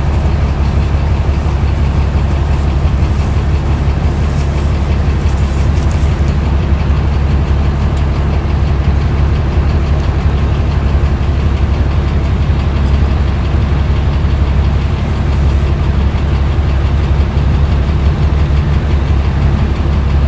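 Large engine idling steadily, a loud, even low rumble.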